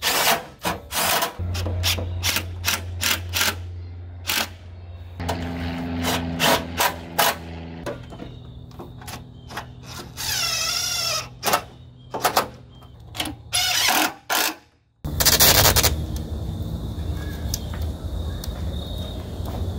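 Cordless power driver fastening parts at the front of a Jeep's radiator, running in many short, sharp bursts with clatter between and a wavering whine about ten seconds in. It cuts off suddenly a little before the end, giving way to a steady low background hum.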